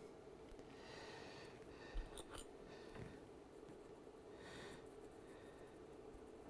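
Near silence, with a few faint soft swishes and two light clicks about two seconds in.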